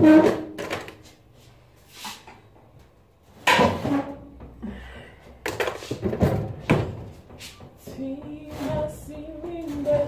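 Kitchen clatter: several sharp knocks and thuds, like cupboard doors or pots being handled. In the last couple of seconds a woman's voice hums a wavering tune.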